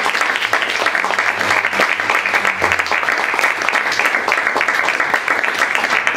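Small seated audience applauding, a dense and steady patter of clapping hands.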